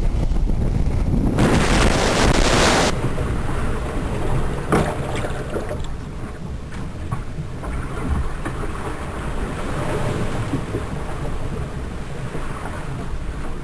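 Strong wind buffeting the microphone over a sailing catamaran in a rough sea, with water rushing and splashing along the hull. A louder rush of noise comes about a second and a half in and lasts just over a second.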